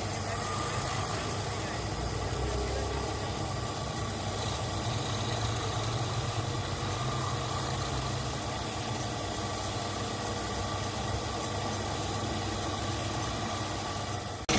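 Steady machine hum with a low drone and a constant hiss, with no hammer blows.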